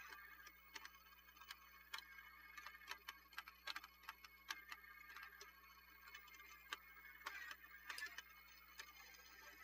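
Radio Shack Armatron toy robot arm being worked by its joysticks: its gear train runs with a faint whir and many irregular clicks as the gears engage and the arm and gripper move.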